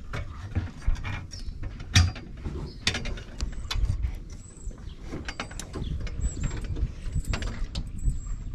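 Knocks and clicks of someone climbing a metal ladder and clambering onto a sailboat's deck, over the rumble of a body-worn camera being handled. A faint, thin high tone comes and goes from about three seconds in.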